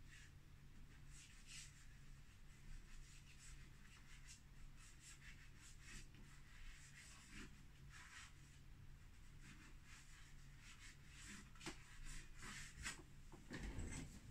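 Faint, irregular scratching strokes of a chalk pastel stick drawn across the painting board, with a few soft knocks near the end.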